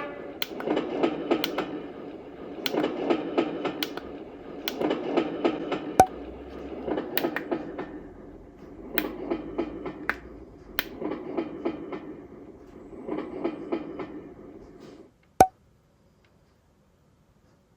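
An Easysleep EWN 12 sound machine plays its train track through its small speaker: rhythmic clickety-clack of rail wheels, swelling in groups about every two seconds with sharper clanks now and then. Near the end the sound cuts off, a single click follows, and then there is near silence.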